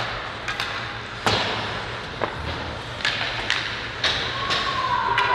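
Ice hockey play: about ten sharp clacks and thuds over five seconds, from sticks, puck and boards, over a steady hiss of rink noise.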